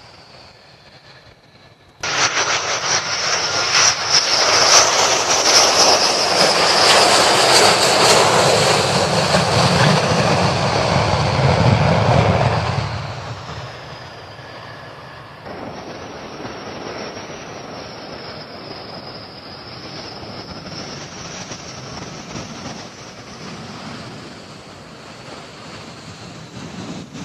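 Jet noise from a Rockwell B-1B Lancer's four afterburning turbofan engines on takeoff: a loud, steady rush that starts suddenly about two seconds in, with a high whine falling slowly in pitch as the bomber passes. Near the middle it drops to a quieter, steady jet rumble with a high whine.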